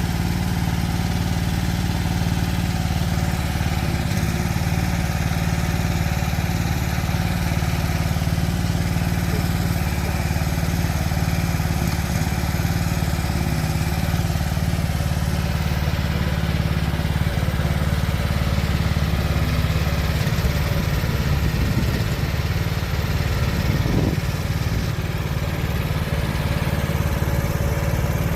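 Small engine of a mini excavator running steadily at idle, with an even low hum and no revving.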